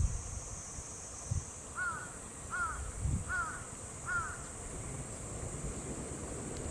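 A crow cawing four times in an even series, over low wind rumble on the microphone and a steady high insect-like hiss.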